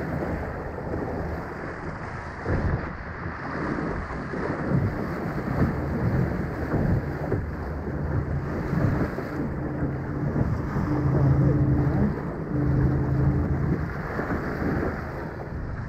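Wind buffeting the microphone and water rushing and splashing along the hull of an RS Aero sailing dinghy moving through chop. A low hum comes and goes in short stretches in the second half.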